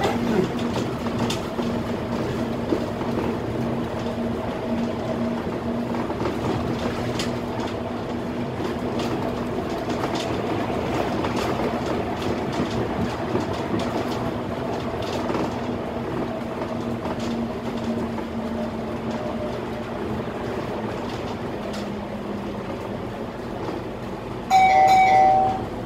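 Cab noise of a Scania K320 articulated bus on the move: a steady drivetrain hum with a constant droning tone, and light rattles and knocks from the body. Near the end a loud tone sounds for about a second.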